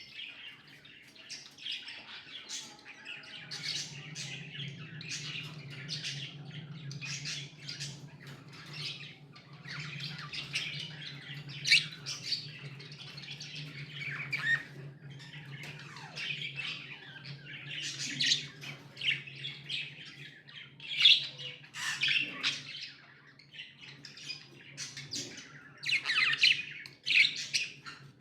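Several pet budgerigars chirping and squawking continuously in quick, overlapping calls, with a steady low hum underneath from about three seconds in.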